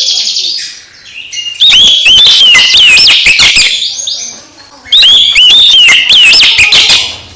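Oriental magpie-robin (kacer) singing loud, rapid whistled phrases of rising and falling notes, in two long bursts with a short pause between them.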